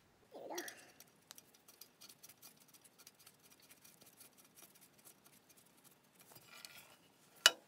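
A knurled screw being turned in by hand on a King Canada 6-inch jointer: faint, irregular small clicks and scrapes of metal parts handled, with one sharp knock near the end.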